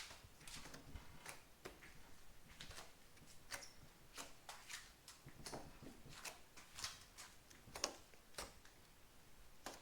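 Faint, irregular light clicks and taps, roughly one or two a second.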